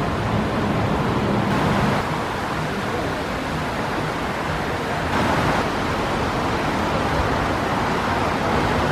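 Steady rushing noise of road traffic and car engines. The level drops suddenly about two seconds in and rises again about five seconds in.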